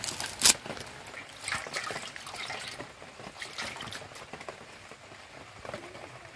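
Dry onion skin crackling as a red onion is peeled by hand, with a sharp click about half a second in, then water splashing as a hand dips into a steel bowl of water.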